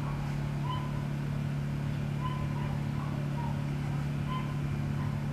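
Steady low mechanical hum with a rumble beneath it, like a motor running, and several short, faint chirps over it.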